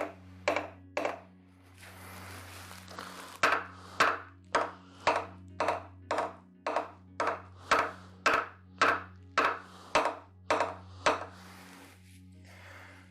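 Hammer tapping the side of a Chevy 350 small-block's cylinder head, about two sharp blows a second with a pause of a couple of seconds early on, to break the stuck head loose from its dowels.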